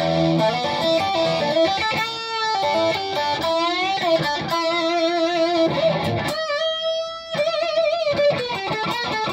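Solar AB1.6TBS electric guitar played lead: held single notes with upward string bends and wide vibrato.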